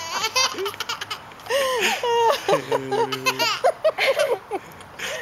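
A ten-month-old baby laughing in a string of short bursts, with adults laughing along.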